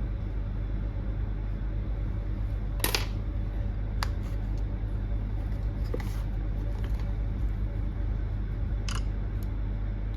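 A few small, sharp clicks and taps, about five spread irregularly, over a steady low hum.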